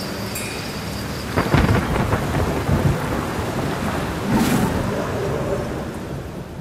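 Steady heavy rain with a sharp crack of thunder about a second and a half in that rolls on as a low rumble, and a second, weaker rumble about four seconds in. The rain eases off near the end.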